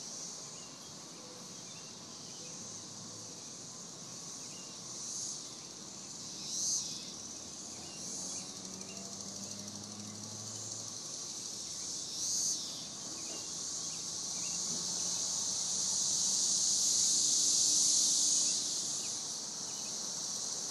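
Chorus of 13-year periodical cicadas (Brood XIX): a continuous high buzzing drone, with several single calls swelling and fading over it. The chorus grows louder toward the end, then eases off a little near the end.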